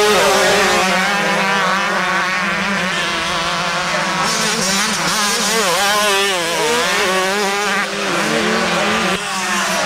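Several motocross bikes racing on a sand track, their engines revving up and down in pitch, overlapping one another, as the riders accelerate and shift through the ruts.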